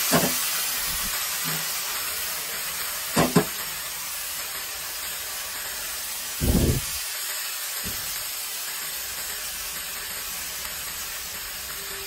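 Bottle gourd greens (lau shak) sizzling and hissing with steam in a hot oiled wok, the hiss loudest at first and slowly fading. Two sharp clicks come about three seconds in, and a dull thump about six and a half seconds in.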